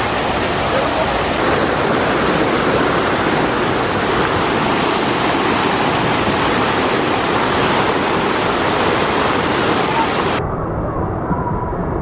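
Water rushing steadily and loudly down a concrete tube-slide flume and churning through its curving bowl. Near the end it cuts abruptly to a quieter, duller water sound.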